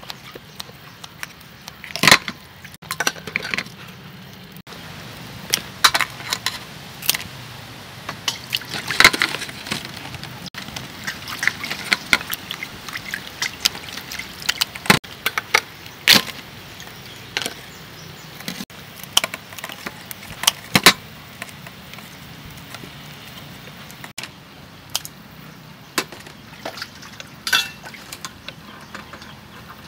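Kitchen scissors snipping through raw blue crab shells, with irregular sharp clicks and clinks of shell against metal bowls, and water sloshing as the crab pieces are washed by hand.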